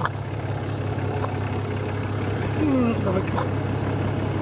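Off-road 4x4's engine idling steadily while the vehicle sits stuck in deep mud, with a couple of sharp knocks.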